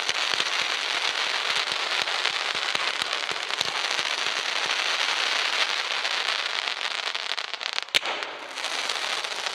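Low-noise 100-shot firework display cake (Celtic Fireworks Go Go Go) firing its crackling, sizzling effects without bangs: a dense, continuous crackle of many small pops. One sharper crack stands out about eight seconds in, followed by a short lull before the crackling picks up again.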